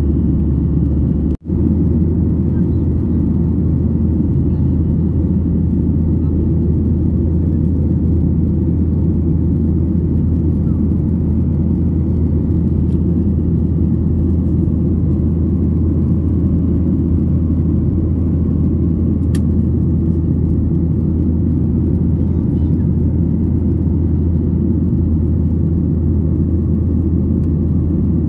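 Steady low cabin rumble of a jet airliner in flight, engine and airflow noise heard from a window seat. The sound drops out for an instant about a second and a half in.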